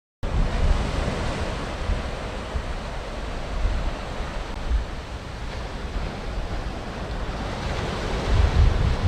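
Surf washing onto a beach, a steady rushing hiss, with wind buffeting the microphone in low rumbling gusts that grow stronger near the end.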